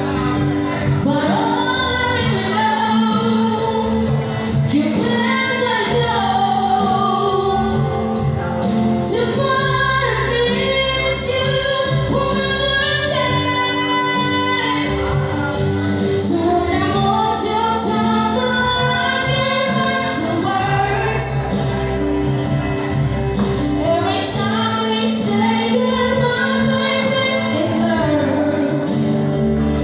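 A woman singing live into a handheld microphone over instrumental accompaniment of sustained chords and a bass line, her voice gliding between long held notes.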